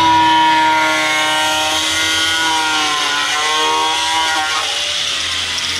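Electric angle grinder running at full speed while grinding a chamfer into a steel planter part, a high whine over a grinding hiss. Its pitch dips briefly about three seconds in and falls away near the end as the motor winds down.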